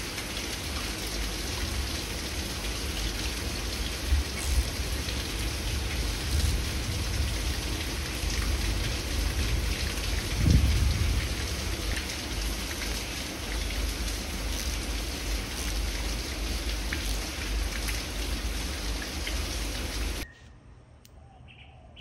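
Steady rain falling, with a few faint clicks and one louder knock about halfway through; the rain sound cuts off abruptly a couple of seconds before the end.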